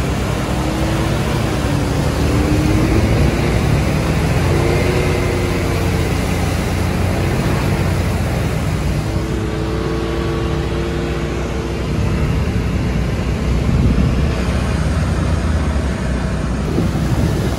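An off-road vehicle's engine running under load, with its pitch rising and falling gently as the machine is driven over rough ground.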